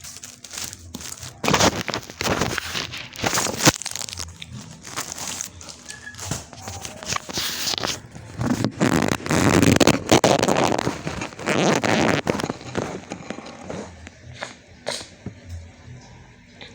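Sweet corn frying in hot oil, crackling and popping irregularly, with a denser, louder run of crackles about nine to twelve seconds in.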